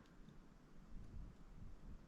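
Near silence: faint handling noise from a Master Lock 141 padlock being picked, with a faint tick or two.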